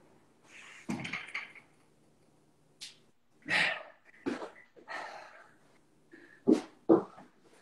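A person breathing hard with short, forceful exhales while coming down from a handstand during a workout. Two sharp thumps about half a second apart near the end.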